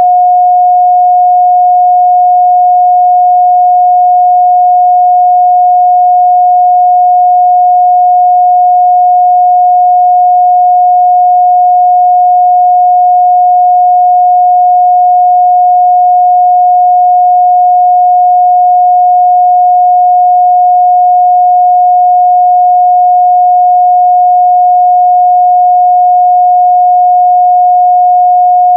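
Pure 721 Hz sine-wave test tone, held steady and loud with no change in pitch or level.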